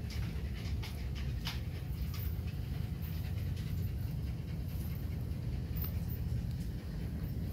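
Phú Quốc Ridgeback puppies panting and moving about on a tiled floor, with short clicks and scuffs, most of them in the first couple of seconds, over a steady low hum.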